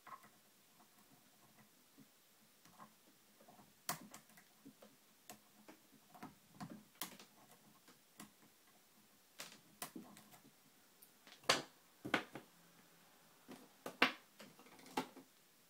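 Small irregular metallic clicks and ticks of a lock pick and tension wrench working the pin stack inside a TrioVing oval cylinder, during single-pin picking. A few sharper, louder clicks come in the last few seconds.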